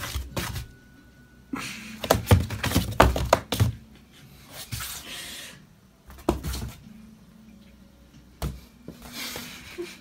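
Scattered small knocks, taps and rustles in a small room, in irregular clusters, with one sharper knock near the end: handling and movement noise rather than any voice or call.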